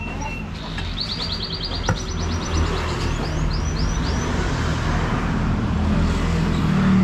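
A motor vehicle passing on the road, its engine rumble and tyre hiss swelling toward the end. Small birds chirp in quick trills and a few short calls during the first half.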